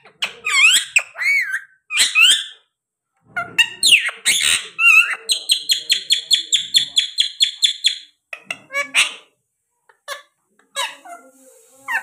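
Indian ringneck parakeets calling: sharp gliding whistles and squawks, then a rapid run of short chirps, about six a second, for around three seconds, then a few more short calls.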